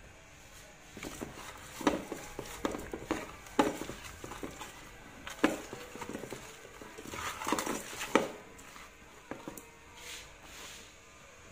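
Irregular knocks and taps of whole fish and fingers against a metal pot as the fish are packed in, a denser run of handling sounds near the end.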